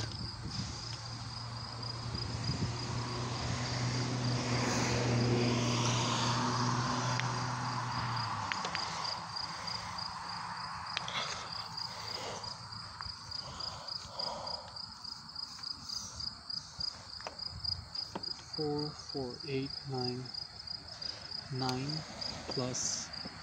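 Crickets chirping in the grass: a steady run of evenly spaced high-pitched pulses. A low motor hum swells and fades over the first eight seconds, and brief faint voices come in near the end.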